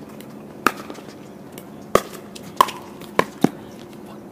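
Pickleball rally: paddles striking the plastic ball back and forth, five sharp pops, the last two close together near the end.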